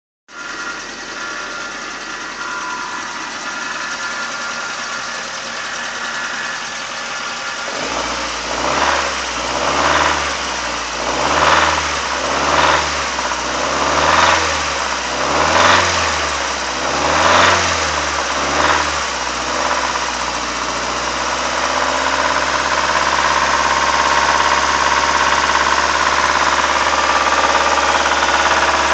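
2002 Mazda Protege5's four-cylinder engine idling, then revved in about eight short blips a little over a second apart, then running steadily and a little louder. The engine gives a strange rattle whenever the gas is pressed.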